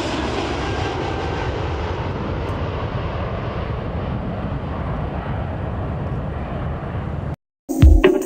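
Airplane engine noise, a steady rumble whose high end slowly fades away. It cuts off abruptly near the end, and music with a beat starts.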